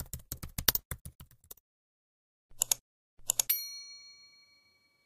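Keyboard-typing sound effect, a quick run of key clicks for about a second and a half, then two mouse-like clicks and a bright notification-bell ding that rings out and fades over about a second and a half.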